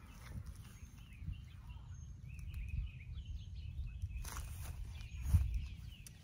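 Small birds chirping in short repeated calls over a low rumble, with tomato vines rustling as cherry tomatoes are picked by hand; a louder rustle about four seconds in and a short sharp snap just after five seconds.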